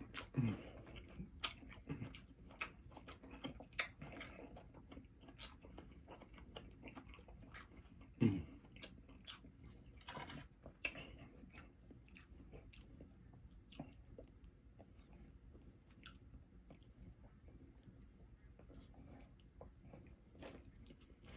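Close-up mouth sounds of a person chewing food from a seafood boil, with frequent small wet clicks and smacks. There are two brief low hums that drop in pitch, one just after the start and one about eight seconds in.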